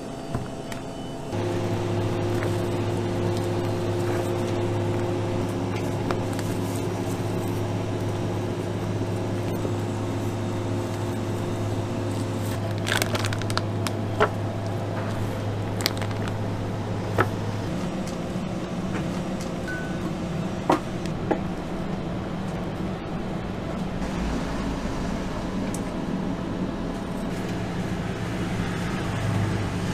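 A steady machine hum that shifts to a different, lower-lying drone about halfway through, with a few light clicks and taps scattered over it.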